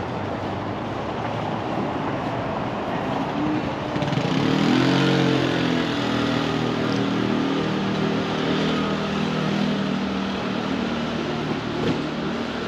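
Street traffic noise, with a motor vehicle's engine coming in about four seconds in. Its pitch rises as it passes, then it fades away over the next several seconds.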